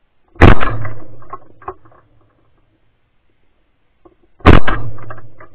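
Two shotgun shots about four seconds apart, each a sharp, very loud crack followed by about a second of fading echo.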